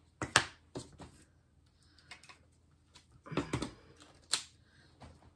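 3D-printed plastic Mickey ear pieces and headband being handled and clicked together: a few sharp clicks and knocks, the loudest about half a second in and another cluster about three and a half seconds in.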